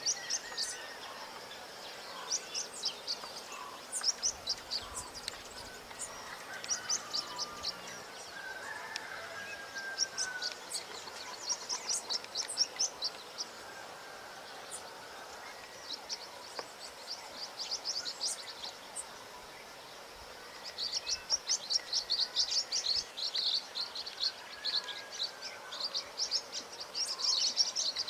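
Birds calling: repeated bursts of rapid, high chattering chips every few seconds, growing denser near the end, with a few fainter, lower whistled notes between.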